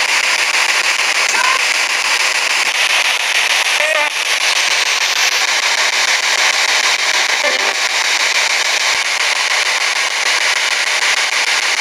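Spirit box radio sweeping through stations: a steady wash of loud static, with brief snatches of voice-like sound breaking through a few times.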